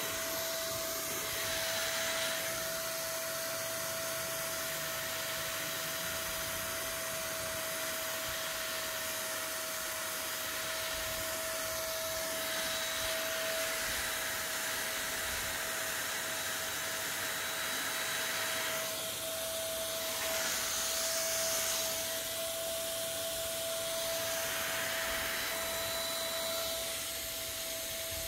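Handheld electric paint sprayer running steadily: a constant motor whine over a rushing hiss of air and spray, swelling and fading a little as the gun is swept across the work.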